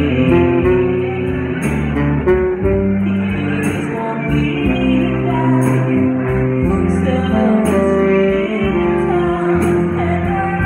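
Live band playing: a saxophone holding long notes over guitar and a steady drum beat with cymbal hits, with a singer.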